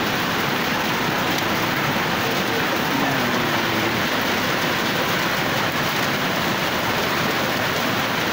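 Rain falling steadily on muddy ground and puddles, an even, unbroken hiss.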